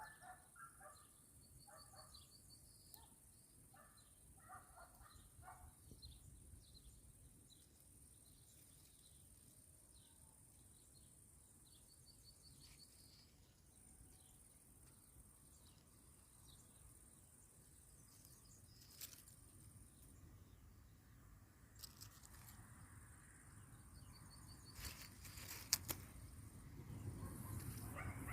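Faint outdoor ambience with small birds chirping and trilling now and then, and a few sharp clicks in the second half.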